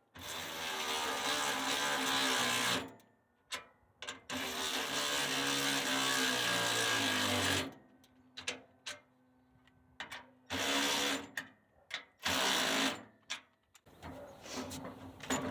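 A cordless drill-driver running in bursts while driving nuts onto the bolts of a wheelbarrow frame: two long runs of about three seconds each, then several short spurts near the end.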